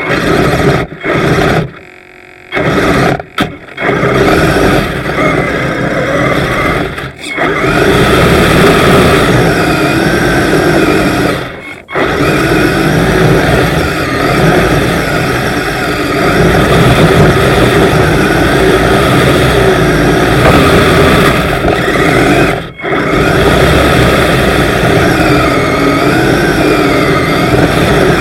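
Kyosho Blizzard RC snowcat running on its metal tracks: the electric drive motors whine and the tracks clatter, varying in pitch with speed. The sound cuts out briefly several times as the throttle is released.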